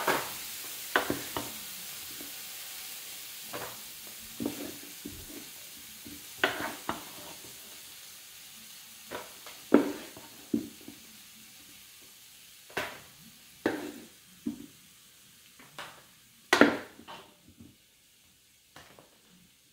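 Wooden spatulas scraping and knocking against a large pan as cooked pork and vegetable stew is scooped out, with scattered sharp clacks, the loudest about ten seconds in and near the end. A faint sizzle from the pan fades away underneath.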